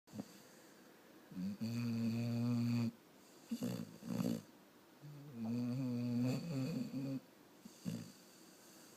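Snoring: two long, pitched snores with a steady tone, each followed by one or two shorter breaths, repeating about every four seconds.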